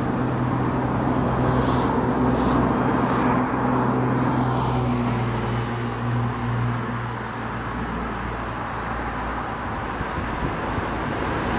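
A steady vehicle engine hum mixed with traffic noise. It eases off a little about halfway through and builds again near the end.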